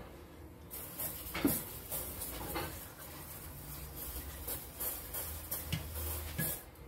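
Aerosol can of brake cleaner spraying with a hiss that starts about a second in and stops shortly before the end, with a few light knocks and clinks.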